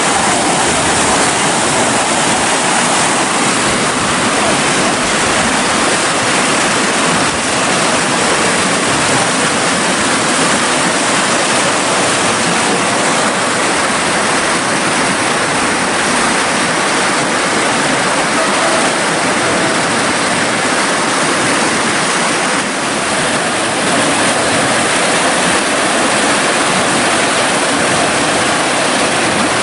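Fast, turbulent river water rushing and churning past a stone embankment: a loud, steady rush of white water.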